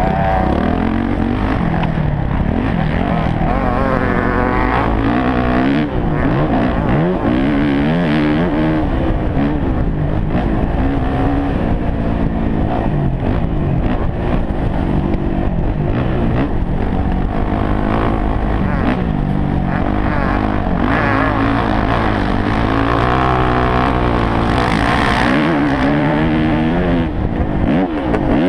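Dirt bike engine, heard from the rider's helmet, revving up and falling off again and again as the rider accelerates and shifts gears.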